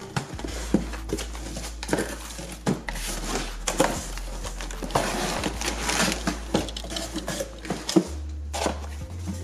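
Cardboard shipping-box flaps being folded open and cardboard product boxes slid out and handled: irregular knocks and scraping rustles of cardboard.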